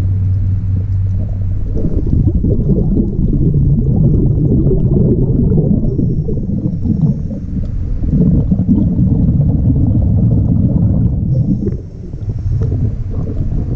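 Muffled underwater rumbling and gurgling heard through a GoPro housing: a diver's breathing bubbles and water rushing past the camera as it moves along the hull. Thin faint hisses come twice, around the middle and near the end.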